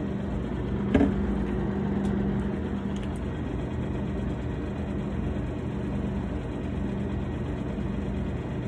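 Steady low electrical hum of a refrigerated glass-door drink cooler, with a single sharp knock about a second in.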